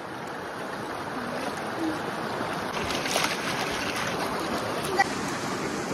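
Shallow stream water running over rock, with hands swishing and scooping through the water and gravel close by. There is a short flurry of splashing about three seconds in.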